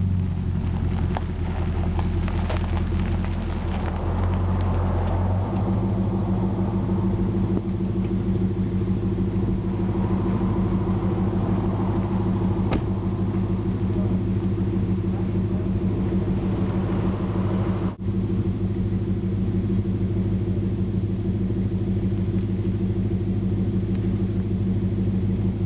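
Jeep Wagoneer's engine droning steadily while driving, with a step up in engine pitch about five seconds in.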